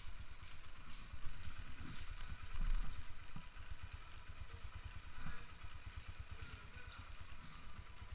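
Motorcycle engine running at low revs as the bike creeps along, a steady low rumble of fast, even pulses.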